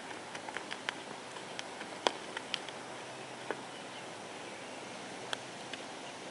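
Steady outdoor hiss with irregular sharp ticks and clicks, most of them in the first three seconds and the loudest about two seconds in.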